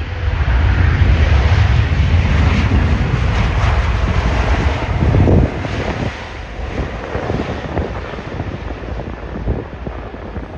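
Wind buffeting the microphone, heavy for about the first five and a half seconds and then dropping off suddenly, over a steady rush of aircraft noise.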